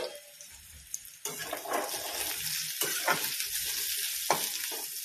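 Besan (gram-flour) stuffing frying in hot mustard oil in a metal kadhai. A sizzle rises sharply about a second in and stays steady, with a spoon scraping and knocking against the wok several times as it is stirred.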